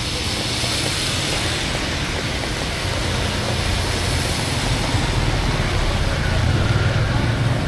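Road traffic on a wet street: a car and then motorbikes driving past, with a steady hiss of tyres on the wet surface over a low engine hum. It grows a little louder near the end.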